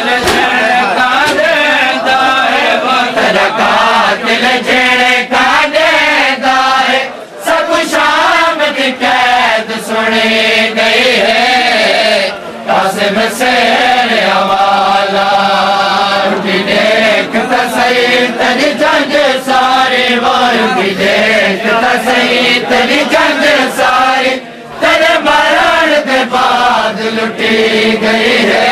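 Men's voices chanting a noha, a Shia Muharram lament, together in lines, with short breaks between lines. Many sharp slaps of chest-beating (matam) run under the chant.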